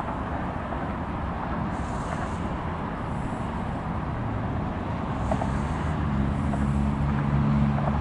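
Steady rumble of motor vehicle traffic. A vehicle engine's low hum comes up about five seconds in.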